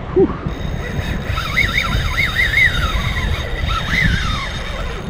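Wind buffeting the microphone of a kayak-mounted action camera, with a high whine that wavers up and down several times from about a second and a half in to about four seconds in.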